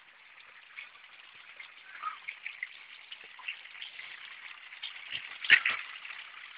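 Flowing water trickling and splashing at the edge of a pond, a crackly hiss with scattered small clicks and a louder cluster of clicks about five and a half seconds in.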